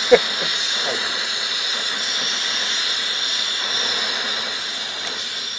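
Steady hiss of background noise, with a single sharp click just after the start.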